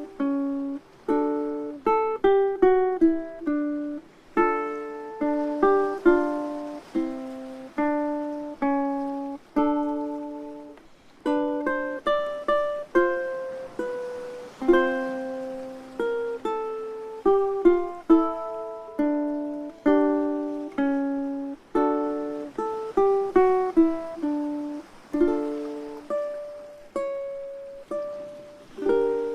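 Instrumental ukulele music: plucked notes and chords in a gentle, steady melody, each note ringing briefly and fading.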